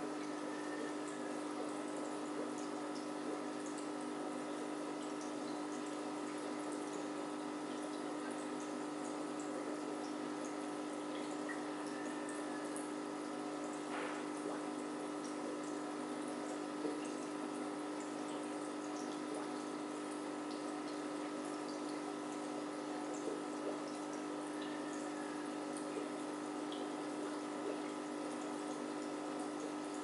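Aquarium filter running: a steady trickle and splash of water with a constant hum from the pump, and scattered small drips.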